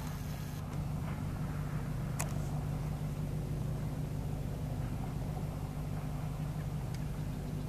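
A motor engine idling with a steady low hum, with one short click about two seconds in.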